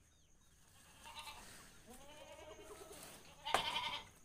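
Farm animals calling in a livestock shed: a wavering, bleat-like call about two seconds in, then a louder, shorter call near the end.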